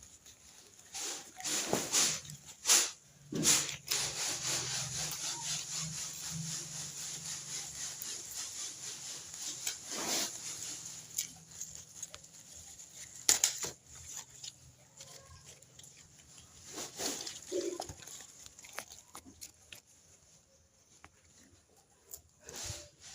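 Rustling of corn plants with sharp snaps and cracks, as ears and stalks are broken during corn harvesting, with a faint low hum under the first half.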